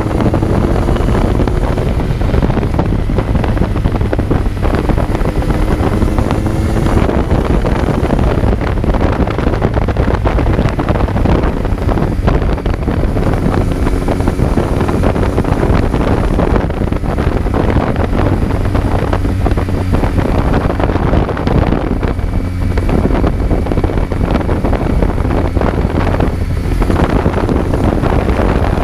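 Kawasaki Z900's inline-four engine running under way, heard from on board with heavy wind noise on the microphone. The engine pitch climbs under throttle and drops back as it shifts, a couple of times.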